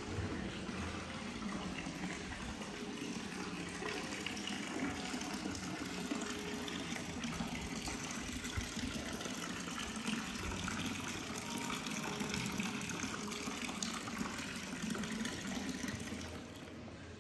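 Water pouring steadily from a stone fountain's spout into its stone basin, a continuous splashing trickle. It drops away near the end.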